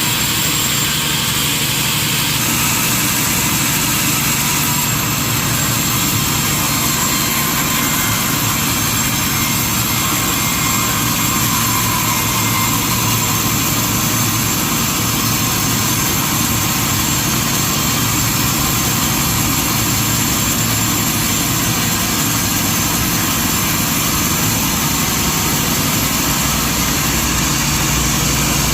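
Sawmill machinery running steadily: a continuous, even mechanical noise with no breaks.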